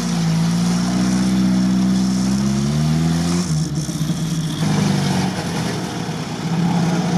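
Off-road SUV engine running at low revs in mud, its pitch rising slowly for about three seconds and then dropping back suddenly, before settling to a steady run as the vehicle edges forward.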